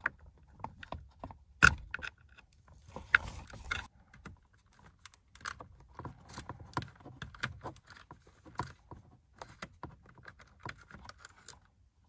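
Irregular small clicks and rattles of plastic parts and wiring being handled by hand at the steering column, as the multifunction (blinker) switch's harness and connectors are worked loose. Two sharper clicks stand out, about one and a half and three seconds in.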